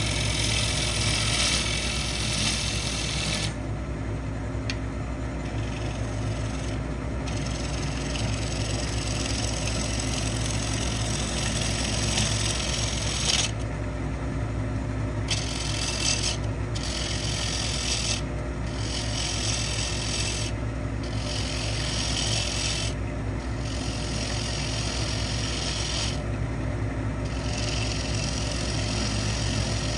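Wood lathe running with a steady low hum while a tool works the spinning pecan bowl, a high hiss of tool on wood that breaks off briefly several times as the tool comes off the work.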